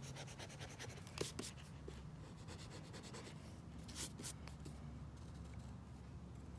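Pencil scratching on notebook paper in quick short strokes, with a few louder, longer strokes about a second in and again about four seconds in.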